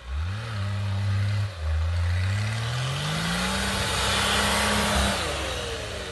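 4x4 off-road vehicle's engine revving hard: a quick rev at the start, a short dip, then a slower climb in pitch held high for a few seconds before it drops off about five seconds in. A rushing hiss builds underneath during the long rev.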